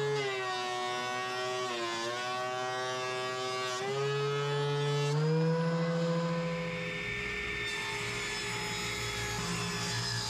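DeWalt benchtop thickness planer running, its motor pitch sagging twice as the cutterhead bites into the board and jumping back up about five seconds in when the board comes free. Toward the end a steadier machine sound takes over, a table saw running.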